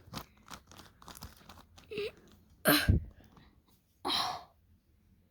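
Plastic puzzle cube being turned by hand: a run of small clicks and scrapes, with a louder burst just under three seconds in and a short breathy rush of noise about four seconds in.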